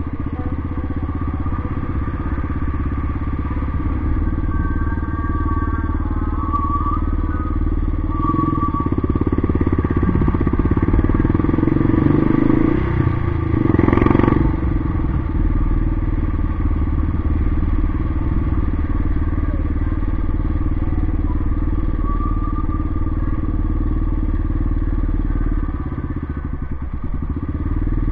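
Yamaha XT 600's single-cylinder four-stroke engine running while riding. The engine gets louder over a few seconds with a short peak about halfway through, then settles back to a steady cruise.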